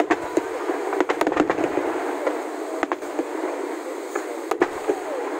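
Aerial fireworks shells bursting: a quick run of sharp bangs about a second in, then single reports spaced a second or two apart.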